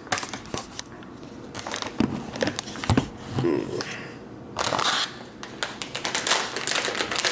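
Crinkling and crackling of a plastic snack bag being handled and opened, in irregular bursts that grow busier in the second half.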